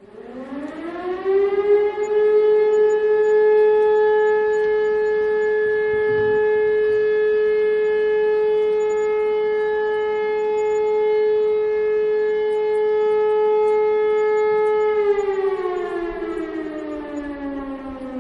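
Civil defense siren sounding one tone: it winds up in pitch over about two seconds, holds steady for about thirteen seconds, then winds down with falling pitch near the end.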